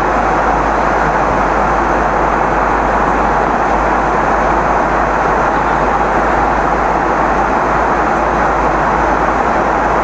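Steady aircraft cabin noise in flight: an even rush of engine and airflow noise that does not change.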